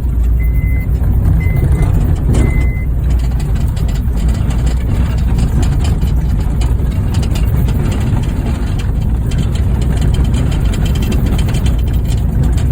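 Stripped-down Honda Fit driving over a rough dirt trail: a steady engine-and-road rumble with the body jolting and rattling. A high beep sounds on and off several times in the first three seconds.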